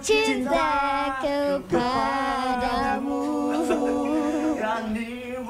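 A voice singing a slow melody without words, in long held notes that step up and down in pitch.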